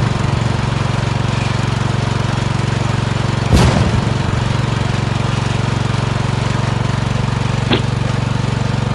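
MTD Yard-Man lawn tractor's 15.5 hp Briggs & Stratton engine running steadily while the tractor is driven, with a brief burst of noise about three and a half seconds in.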